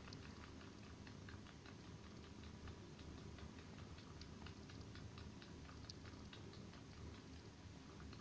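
Kitten sucking on a shaggy bath rug as if nursing: faint, rhythmic little clicks, about three a second.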